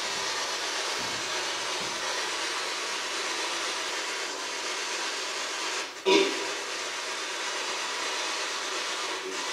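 PSB-7 spirit box scanning radio stations: a steady hiss of radio static. About six seconds in it cuts out for a moment, then lets through a short clipped burst of sound that the investigators read as a word, captioned "Leave?"; it dips briefly once more near the end.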